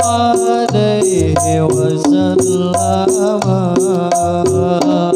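Background sholawat music in the terbangan style: frame drums beat about four strokes a second under a stepping melody line, in the instrumental gap between sung lines.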